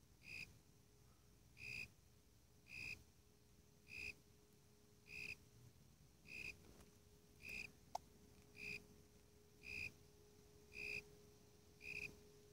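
Cricket calling, tentatively identified as a Warilla imposter (Eurygryllodes warrilla): short, evenly spaced chirps of a single high note, about one a second, eleven in all.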